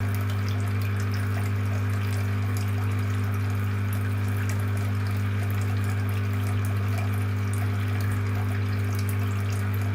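Small submersible fountain pump humming steadily, with water trickling and dripping through the clay-pot tabletop fountain.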